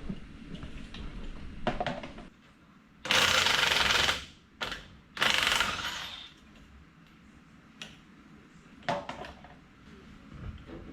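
An impact wrench running in two bursts of about a second each, spinning lug nuts off a wheel of a 1941 Chevy pickup. There are a few lighter knocks between and after the bursts.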